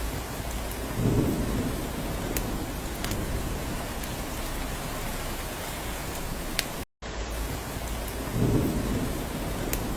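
Steady rain falling on a cabin roof, with a short low rumble about a second in and again near the end, and a few sharp drip taps. The sound cuts out for a split second about seven seconds in.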